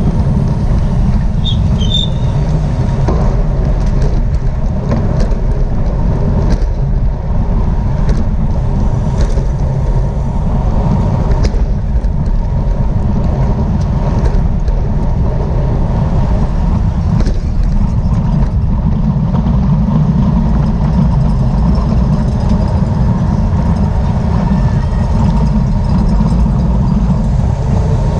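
Steady, loud wind rumble on a bike-mounted camera's microphone as the bicycle rides at race speed, with a few faint clicks and a brief high chirp or two about two seconds in.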